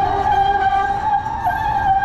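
Train wheels squealing on the rails: one high, steady squeal that wavers slightly in pitch, over a low rumble of traffic.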